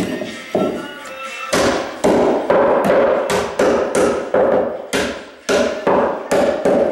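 Hammer blows nailing carpet tack strip to wooden stair treads, in a quick series of about two to three strikes a second with a short pause about a second in. Each strike rings briefly.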